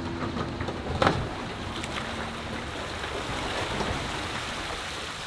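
Water rushing and splashing off a boat hull and its trailer as the boat is hauled up a launch ramp, with a sharp clunk about a second in.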